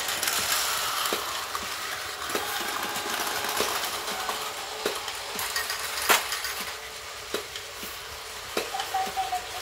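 Plarail battery-powered toy train and Action Station playset running on plastic track: a steady mechanical whir with a sharp click a little more than once a second, the loudest click about six seconds in.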